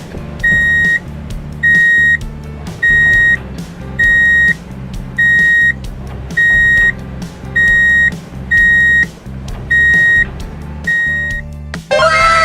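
Reversing alarm on heavy construction machinery beeping about once a second over a low engine rumble. Near the end, a different sound made of many falling tones cuts in.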